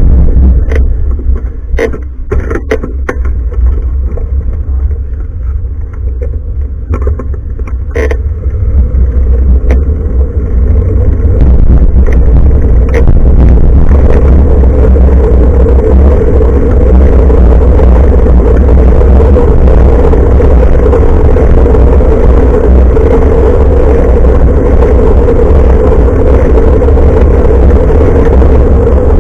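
Heavy wind buffeting and road rumble on the microphone of a handlebar-mounted action camera on a moving bicycle. There are a few sharp knocks in the first eight seconds, and the rumble grows louder and steady about eleven seconds in.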